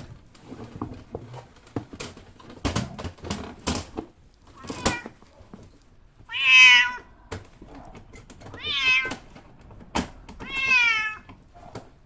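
Domestic cat meowing three times, each a drawn-out call under a second long, the first the loudest, after a run of knocks and rustling. The cat is resisting being caught and put in its carrier for a vet visit.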